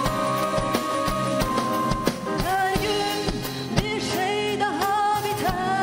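Live pop band with drum kit, bass, guitar and keyboards playing a Turkish pop song. A woman's lead vocal, sung into a handheld microphone, comes in about two and a half seconds in.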